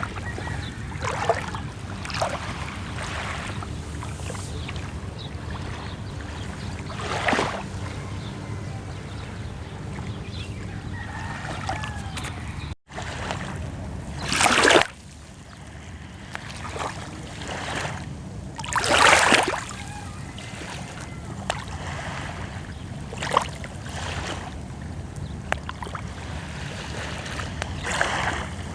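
Small sea waves lapping and splashing at the shore, a short wash every few seconds over a steady low rumble, with a brief dropout just under halfway through.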